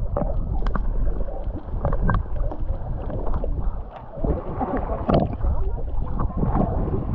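Sea water sloshing and splashing close to the microphone, muffled, with a steady low rumble and irregular small splashes.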